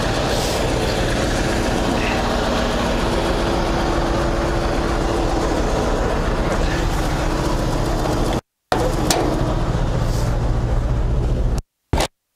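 Scania 143M truck's V8 diesel engine idling steadily, with a faint steady tone over it for a few seconds in the middle. The sound cuts out abruptly for a moment about eight seconds in and again twice near the end.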